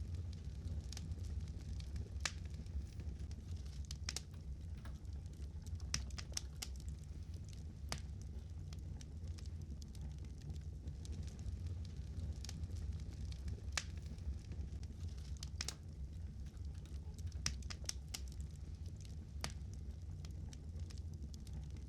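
Wood fire crackling: irregular sharp pops and snaps, several a second at times, over a steady low rumble.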